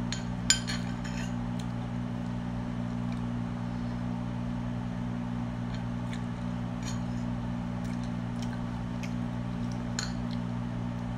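A metal spoon clinking and scraping against a ceramic plate as someone eats: a sharp clink about half a second in, then lighter taps scattered after. A steady low hum runs underneath.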